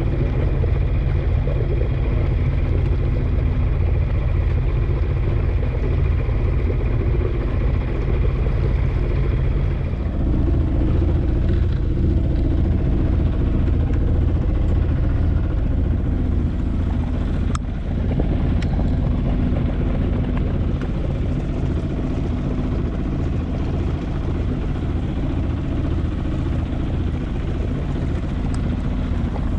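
Sailboat's inboard engine running steadily under way, with a change in its tone about ten seconds in.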